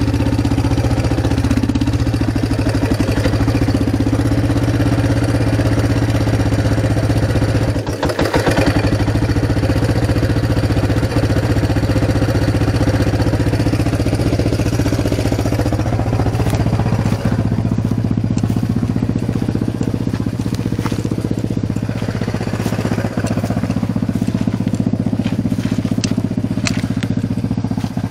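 ATV (quad) engine running at a steady speed, close to the camera. There is a short clatter about eight seconds in, and from about halfway on, scattered crackling clicks sound over the engine.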